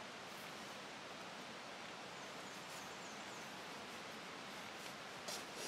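Steady hiss of woodland background with a few faint high chirps from a bird a little past halfway. Near the end come brief scratchy rustles as tarred bank line is drawn through the leather pouch being hand-stitched.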